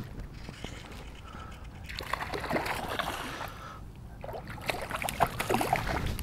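Stream water splashing and sloshing close to the microphone, in two spells: one starting about two seconds in, the other from about four seconds to the end.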